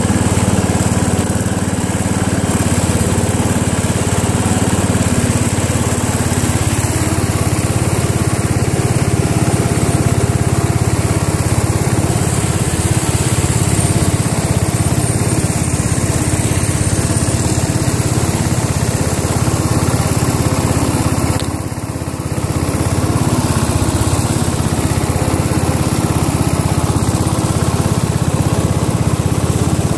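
Small engine of a garden-tractor mud romper running hard at a steady throttle while its rear tire churns through wet mud and slush. The engine sound dips briefly about three-quarters of the way through, then picks back up.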